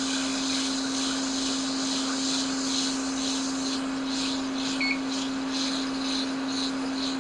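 Hot air rework station blowing steadily, an even hiss of airflow over a constant low hum, while heat is reflowing the solder under a replacement U5600 touch IC so that the chip drops into place.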